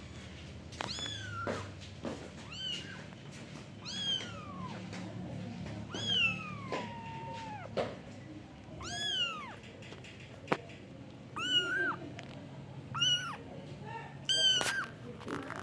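Very young kitten mewing over and over: thin, high meows that rise and fall in pitch, about one every second or so. A single sharp click comes a little after halfway.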